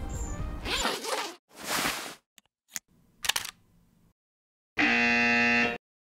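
An edited run of short sounds cut apart by dead silence: a rustling burst, a few sharp clicks, then a steady electronic tone held for about a second that cuts off sharply.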